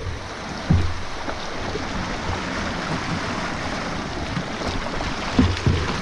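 Fast, choppy river water rushing and splashing around a canoe's hull, with a few dull thumps on the canoe, one about a second in and two close together near the end.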